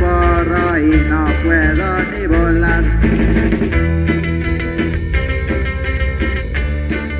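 Punk rock recording with distorted electric guitars, bass and drums. Over the first three seconds a lead line bends up and down in pitch, then the band plays on with steady chords.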